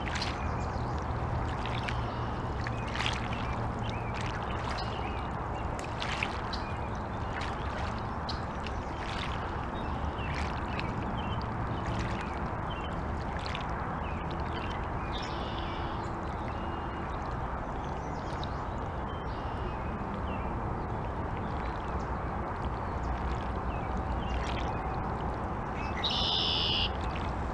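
Small river waves lapping and splashing at the bank, with a duck quacking near the end.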